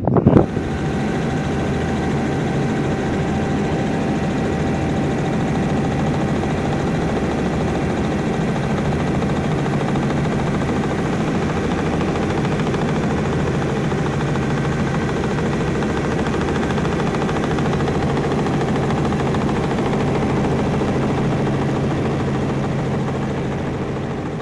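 A steady engine drone with a few held tones over it, starting abruptly and fading out near the end.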